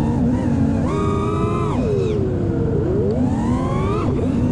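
FPV racing quadcopter's brushless motors and propellers whining over a rush of wind, the pitch swinging with the throttle: it jumps up about a second in, falls back around two seconds, then climbs again and drops near the end.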